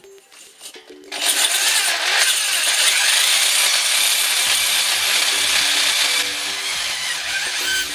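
Handheld Bosch electric drill with a long extension bit running under load, boring through a gravel-filled wall: a loud, steady grinding whir that starts about a second in and cuts off just before the end.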